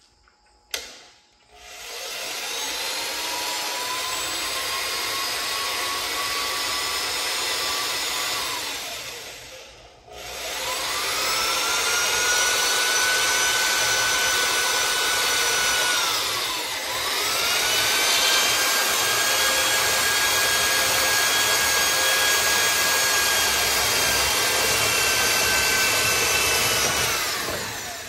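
Handheld electric drill boring a hole through a widebody fender-flare panel into a car's rear quarter panel. It runs three times: each time the motor whines up to speed, holds steady, then winds down, with a short break about ten seconds in and a brief dip about two-thirds of the way through. A single sharp click comes just before the first run.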